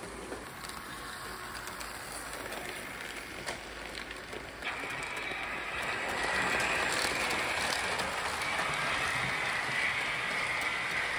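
Märklin model freight train running on the layout track: container wagons' wheels rolling with occasional sharp clicks. It gets louder about four to five seconds in, as the wagons pass close.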